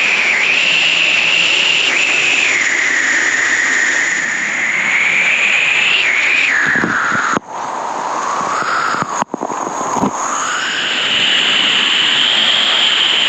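Steady rush of water echoing inside an old hydroelectric tunnel, with a ringing resonance that drifts up and down in pitch. The sound cuts out briefly twice a little past halfway.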